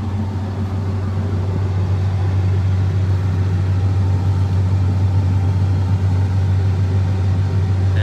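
John Deere X9 combine harvester running while harvesting wheat, heard from inside the cab: a steady low drone of the engine and threshing machinery, getting a little louder about two seconds in.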